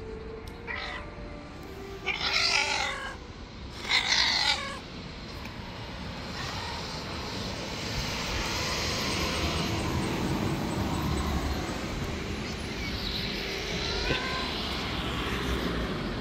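White stray cat meowing: two loud, drawn-out wavering meows a few seconds in, and short rising meows near the end. A steady rushing background noise runs under the second half.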